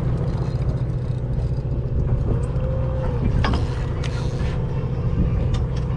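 Party boat's engine running with a steady low hum, and a brief higher tone that rises and falls a little over two seconds in.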